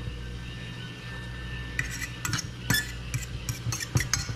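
A metal fork clinks and scrapes against a stainless steel frying pan as it pushes a pat of butter around in melted butter and oil. The quick, irregular taps start about two seconds in, over a steady low hum.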